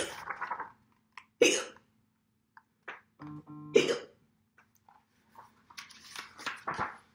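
A woman voicing loud, sharp hiccups, 'hic!': one at the start, one about a second and a half in and one near four seconds, the last after a short hum. Softer paper rustling follows as book pages are turned.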